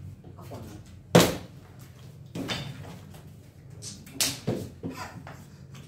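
Partly filled plastic water bottle flipped and landing on a wooden tabletop: several sharp thuds, the loudest about a second in, with more knocks in quick succession near the end.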